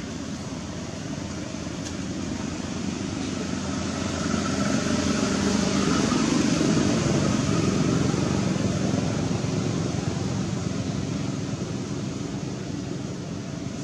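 A motor vehicle passing by, its engine and road noise swelling to a peak in the middle and then fading away.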